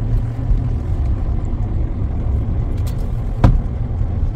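A car driving, with a steady low rumble, and a single sharp knock about three and a half seconds in.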